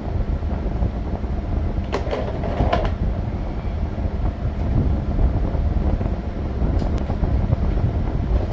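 Steady low vehicle rumble, with a few light knocks about two and seven seconds in.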